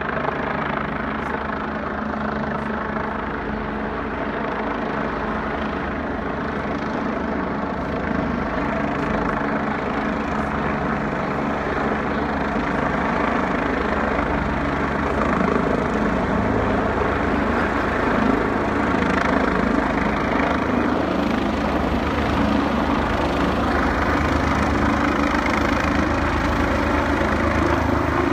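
Agusta A109E twin-turbine helicopter approaching to land, its rotor beating rapidly over the steady engine noise. The sound grows gradually louder as it descends closer.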